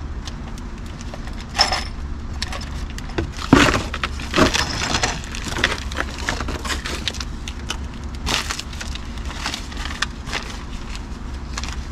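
Crinkling and rustling of crumpled packing paper and plastic hardware bags being handled, a run of irregular sharp crackles, loudest about three and a half to four and a half seconds in, over a steady low rumble.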